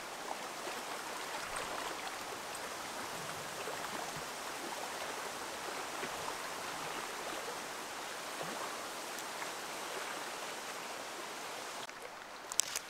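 Steady rushing of a stream's running water, an even hiss with no break.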